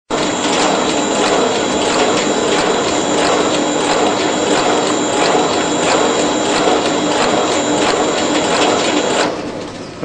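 WPM-G2 automatic double-head wire stripping and terminal crimping machine running at speed: a steady mechanical clatter with regular clicks, a few a second, over a high steady whine. The noise drops away about nine seconds in.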